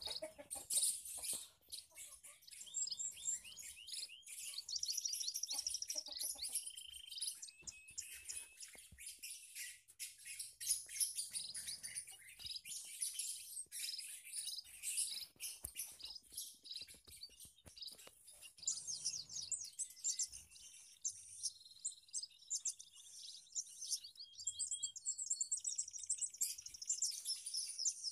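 Small aviary finches chirping and twittering together, a dense, continuous run of high, quick chirps with short trilled phrases mixed in.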